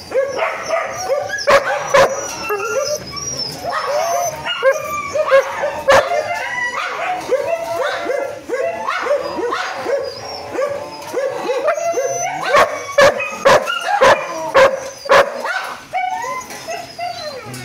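An excited rescue dog whining and yipping nonstop in short high cries, several a second, as it greets a person. Sharp knocks come in a quick cluster past the middle and are the loudest sounds.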